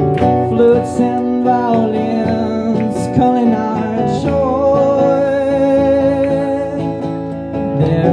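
A man singing to his own acoustic guitar, strumming chords under a wavering vocal line that holds one long note through the middle.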